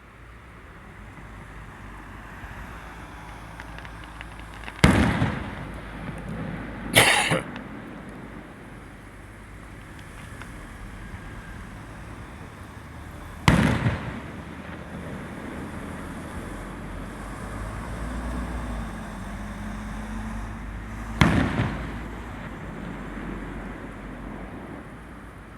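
Aerial firework shells bursting: four loud booms several seconds apart, each with a short echoing tail, the second with a brief hissing crackle. A low steady background runs beneath.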